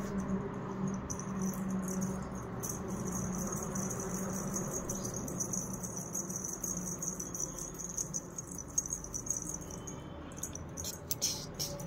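Small silver bells on an anklet (payal) jingling as the anklet is dragged across a tiled floor and shaken, a rapid high tinkling that gets busier near the end.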